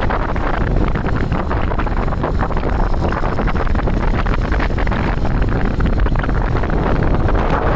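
Wind buffeting the microphone of a moving vehicle: a loud, steady rush, heaviest in the low end, with quick crackling gusts.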